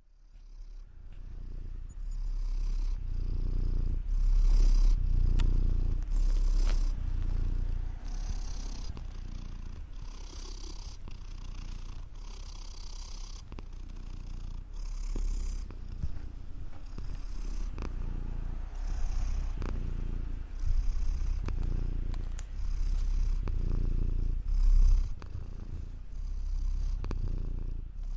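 Domestic cat purring close up, a continuous low rumble that swells in a steady rhythm with each breath, roughly every two seconds.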